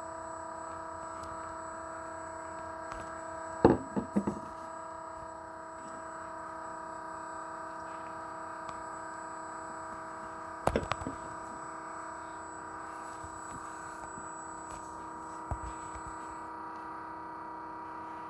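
Battery-powered electric oil transfer pump running steadily, a hum of several fixed tones, pumping fresh oil into a Cat 3208 diesel. A few sharp knocks come about four seconds in and again about eleven seconds in, with a lighter one near the end.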